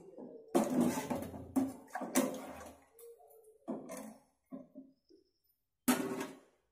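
A metal spoon clinking and scraping against an aluminium pot of water, with about six sharp clinks, each followed by a brief ring from the pot.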